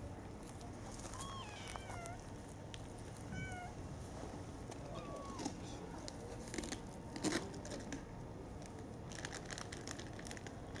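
A cat gives three short, high meows in the first half, followed by scattered crackling rustles in the grass.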